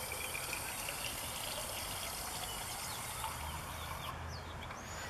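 Water from a garden hose spray nozzle running into a glass jar of bleach, filling it, then shut off about four seconds in.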